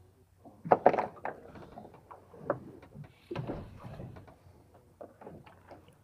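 Irregular knocks and clatter on a wooden boat, with a loud cluster about a second in and more scattered through the rest.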